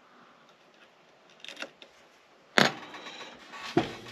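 Small handling sounds on a hobby workbench: light clicks about a second and a half in, then a sharp knock as a metal hobby tool is set down on the cutting mat, followed by rustling and another click near the end.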